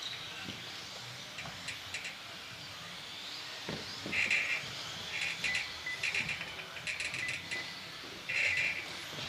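Electric RC off-road cars (2WD buggies and short-course trucks) racing on an indoor carpet track: motors whining in short high-pitched bursts as the cars accelerate and brake, with a rising whine a few seconds in and the odd click of chassis or tyres.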